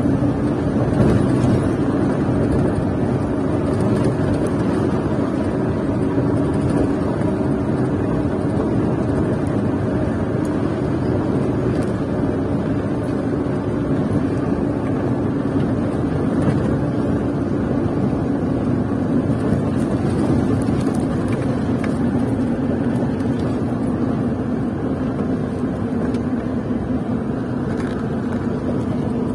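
Diesel engine of a UD Quester GWE 330 tractor unit running steadily at cruising speed, with tyre and road noise, heard inside the cab. The engine note sinks a little in pitch near the end.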